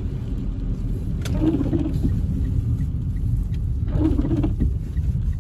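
Steady low rumble of a car driving on a wet road, heard from inside the cabin, with a single sharp click about a second in.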